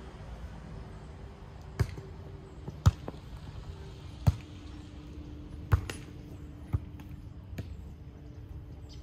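A volleyball being struck by players' hands and arms during a rally: a series of sharp slaps spaced about a second to a second and a half apart. The loudest comes about three seconds in, and a fainter one comes near the end.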